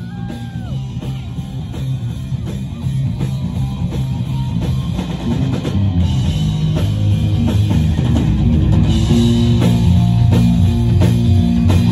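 Rock music with drums and guitar, growing steadily louder.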